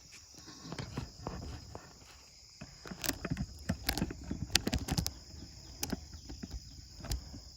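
Scattered close knocks, clicks and scuffs, thickest in the middle, over a steady high insect trill.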